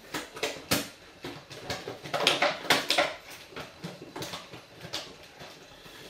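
Hotpoint WMFUG 942 washing machine drum tumbling a wet load in water: sloshing and splashing with soft thuds as the clothes drop, in uneven bursts, loudest about two to three seconds in.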